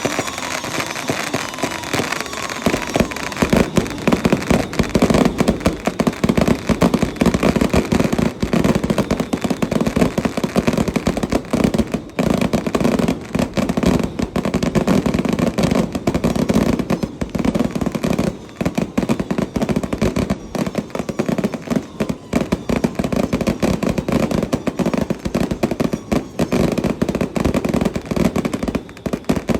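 Firecrackers going off in a dense, continuous rattle of rapid pops, thickening about three seconds in.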